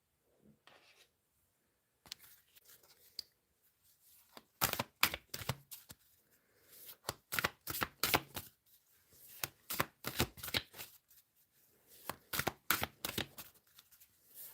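Tarot cards being shuffled and handled: a run of quick, irregular card slaps and rustles, starting faintly and getting busier from about four seconds in.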